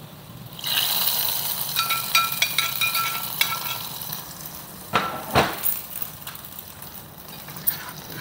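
Hot fried cashews and raisins tipped from a small tempering pan into a steel saucepan of milk pudding. They sizzle sharply from about a second in, and the sizzle fades over several seconds. A metal ladle clinks against the saucepan several times as it is stirred, and there is a single knock about five seconds in.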